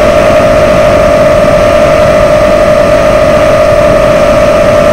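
FPV quadcopter's brushless motors and propellers whining loudly at one steady pitch as it cruises at constant throttle, over a rushing noise of airflow on the onboard camera's microphone.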